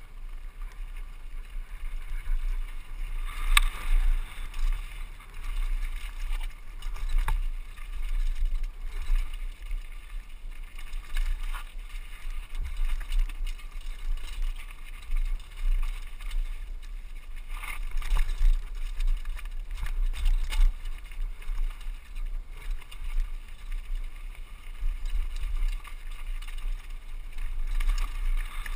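Mountain bike descending a rough rocky trail: a steady rumble of wind on the helmet-camera microphone, with the bike rattling over the rocks and several sharp knocks as it hits them, the loudest about four seconds in.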